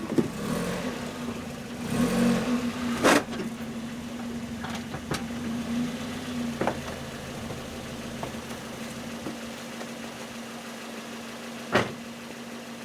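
Toyota Tercel engine running as the car is driven slowly up plastic drive-on ramps, working harder in the first few seconds and then settling to a steady idle. A few sharp knocks stand out, the loudest about three seconds in and again near the end.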